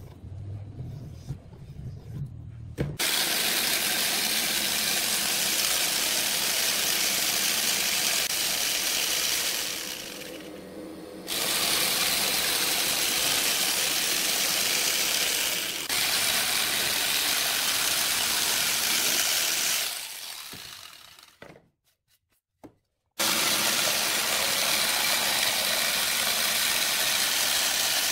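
Dong Cheng DM065 jigsaw running and cutting through wooden boards, starting about three seconds in as a steady, dense rasp. It eases off briefly about ten seconds in, fades out and stops for over a second a little past twenty seconds, then cuts steadily again.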